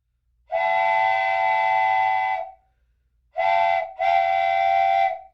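Train horn sounding three blasts, several tones together: a long blast of about two seconds, then a short blast and a longer one almost back to back.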